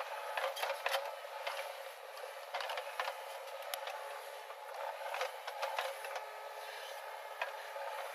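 JCB 3DX backhoe loader's diesel engine running under load while the backhoe digs and lifts a bucket of soil, with repeated sharp clanks and knocks from the arm and bucket.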